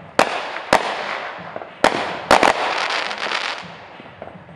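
Fireworks going off: five sharp bangs in the first two and a half seconds, the last two close together, each followed by a noisy tail that dies away by about four seconds in.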